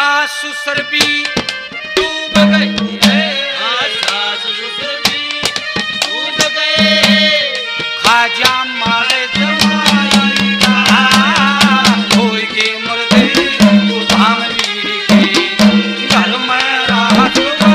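Haryanvi ragni folk music: rapid hand-drum strokes under a gliding, ornamented melody, with a steady low drone note that drops out and returns several times.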